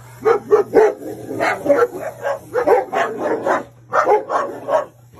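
Dog barking rapidly and repeatedly at a snake, in runs of several quick barks with short pauses between them.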